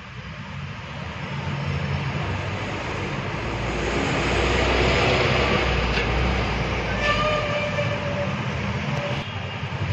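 A heavy vehicle passing by: a rumbling noise that swells to its loudest around the middle and then fades, with a short steady horn-like tone about seven seconds in.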